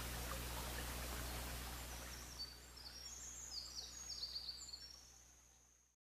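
Forest ambience: a steady rushing hiss fading away, with a small bird singing a run of high, quick notes partway through, before the whole sound fades out to silence.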